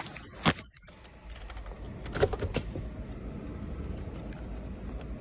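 A scatter of small sharp clicks and taps from hands working with keys and a key fob, a cluster of them a little past two seconds in, over a low steady rumble.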